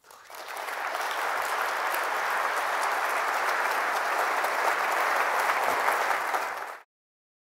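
Audience applauding, swelling in over the first second and holding steady, then cut off abruptly near the end.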